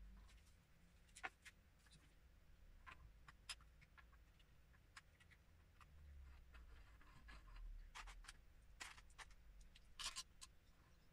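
Faint, irregular clicks and taps of small LEGO plastic pieces being handled and pressed together, with a few louder clicks near the end.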